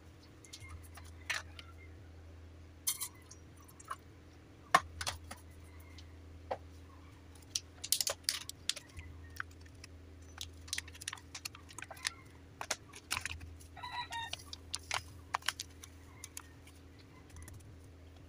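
Irregular clicks, taps and crinkles of kitchen handling: a plastic packet of coconut milk powder being handled and shaken out into a steel pot of water. The sharpest click comes about five seconds in, with a dense run of crinkles around eight seconds, over a steady low hum.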